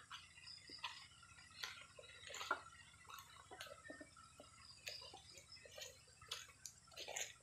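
Faint, scattered knocks and clicks of cut wood logs being set upright and stacked into a charcoal pile.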